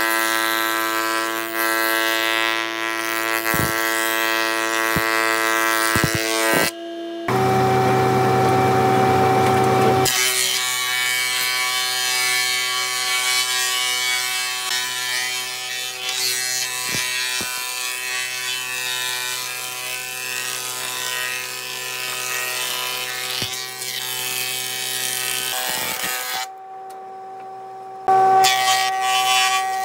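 Power woodworking machinery running, a steady motor whine with sawing or cutting noise in the wood. It is heard across several shots that cut abruptly from one to the next.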